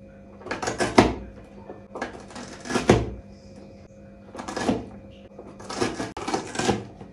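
Manual onion chopper being worked in repeated strokes. Each stroke is a short noisy swish of the blades cutting through onion, coming about once every one to two seconds.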